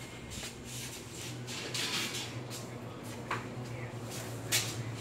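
Indoor eatery ambience: a steady low hum with scattered sharp clicks and clatter, the loudest about four and a half seconds in.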